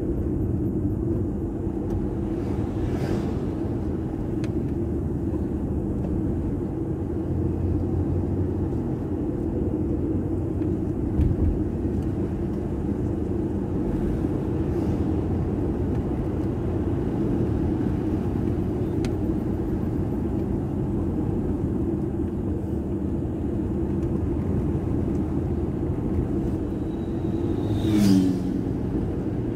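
Car driving, heard from inside the cabin: steady low engine and tyre noise. A brief thump comes about eleven seconds in, and a short sharp knock with a squeak comes near the end.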